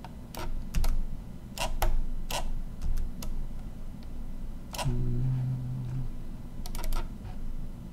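About a dozen sharp, irregularly spaced clicks from a computer mouse and keyboard, with a quick run of clicks near the end, over a low steady hum. A brief low hum lasts about a second, around five seconds in.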